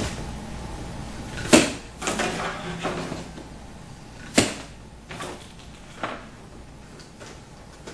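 A large cardboard appliance box being unpacked by hand, its packing straps cut. Several sharp snaps and knocks of strap and cardboard, the loudest about a second and a half in and another sharp one past the middle, with rustling and scraping in between.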